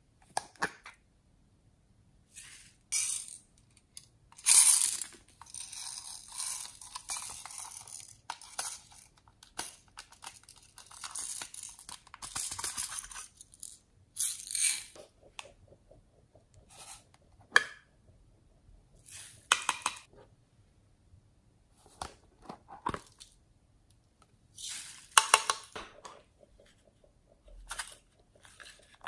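Tiny beads and sprinkles poured from small plastic containers onto slime in a glass dish, a dry rattling pour for several seconds at a time, between clicks and taps of the plastic containers being opened and handled.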